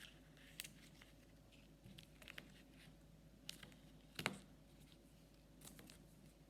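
Faint, scattered clicks and crackles of slime being squished and handled, with the loudest crack a little over four seconds in.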